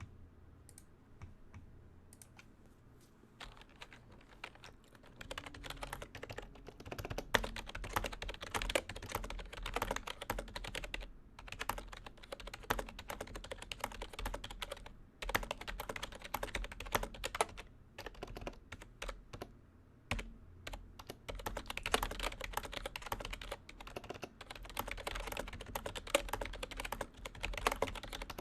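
Lenovo Preferred Pro II membrane keyboard being typed on: a few scattered keystrokes, then fast continuous typing from about three seconds in, broken by a few brief pauses.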